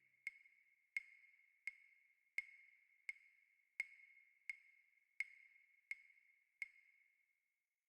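Quiet, sharp ticks with a brief ringing tone, repeating evenly about every 0.7 s, ten in all, then stopping.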